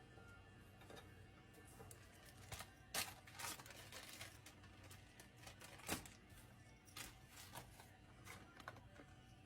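Near silence with a low hum and a few light clicks and taps. The loudest come about three seconds in and about six seconds in.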